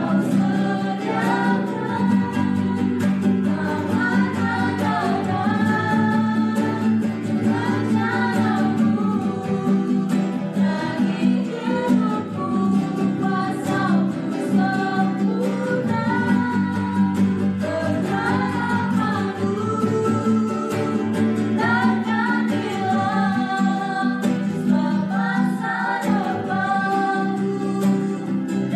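Two acoustic guitars strumming under a small group of mixed male and female voices singing an Indonesian Christian worship song together, steady and unbroken.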